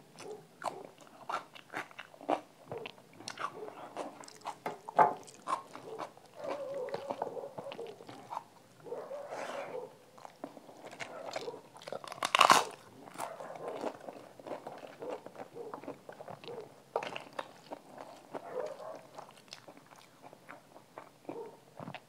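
Close eating sounds of a person chewing a mouthful of rice and dal, with many small crackles and mouth clicks. About halfway through comes one loud crunch as a roasted papad is bitten.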